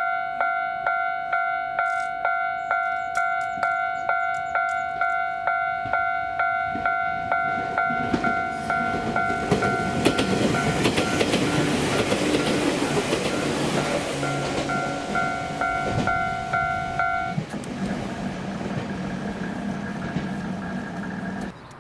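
Level-crossing warning bell ringing in a steady two-tone ding about twice a second while an Izu Kyuko 8000 series electric train passes, its wheels and motors swelling into a loud rumble and rail clatter midway. The bell stops near the end as the train draws away.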